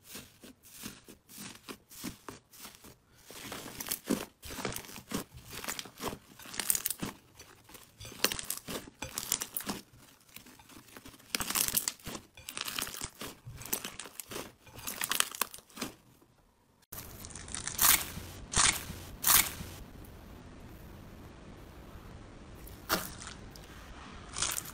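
Hands pressing and squeezing a large, thick slime, making many short sticky crackles and pops. About two-thirds of the way through, it changes to a hand pushing into slime packed with crunchy foam beads: a few loud crunches, then softer crackling over a steady hiss.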